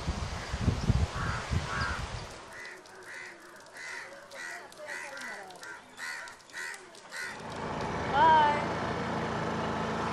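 A crow cawing repeatedly, about two caws a second for several seconds, after a low rumble of wind on the microphone. Near the end, steady outdoor traffic-type noise returns with a short rising call over it.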